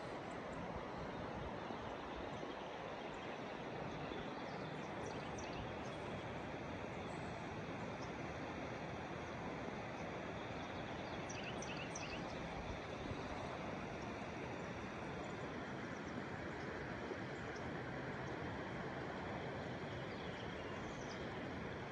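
Steady rush of flowing river water, with a few faint, short, high bird chirps.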